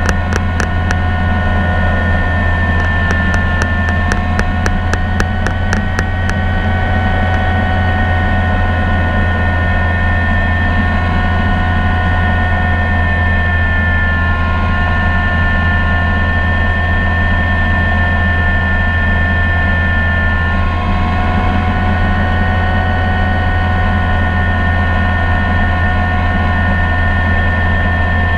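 Helicopter in flight heard from inside the cockpit: a loud, steady low drone from the rotor and engine, with a steady whine above it that holds its pitch throughout.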